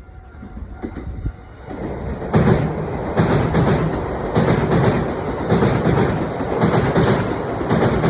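Hiroshima Electric Railway tram running past at close range, getting loud about two seconds in, its wheels clacking over the rail joints in quick pairs.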